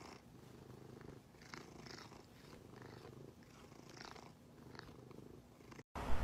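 Fluffy grey cat purring steadily while its chin is scratched; the purr stops abruptly near the end.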